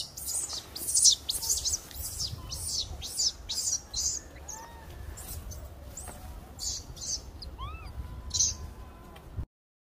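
Birds chirping in quick high notes, two or three a second, with a few fainter rising-and-falling calls among them, over a low steady rumble. The sound cuts off abruptly near the end.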